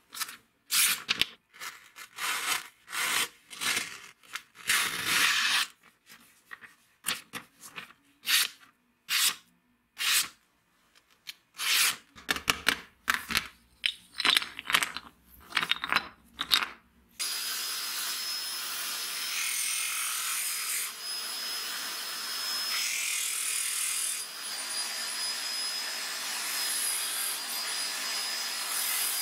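A small wooden handle blank rubbed by hand on sandpaper in short separate scraping strokes, roughly one a second. About halfway in, an electric drill fitted with a sanding disc starts and runs steadily with a thin high whine while the wood is held against it.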